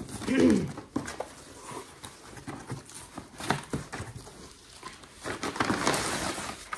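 Cardboard shipping box and paper being handled and pulled open: scattered clicks and rustles, then dense rustling and crinkling for the last second and a half or so. A brief pitched whine that bends up and down comes about half a second in.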